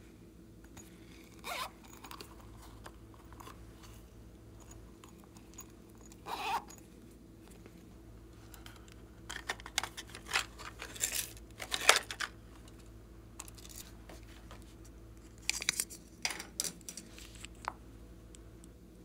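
Small plastic toys and cosmetic containers handled by hand: scattered clicks, rustles and scrapes. They are busiest in a run of clicks around the middle and again near the end.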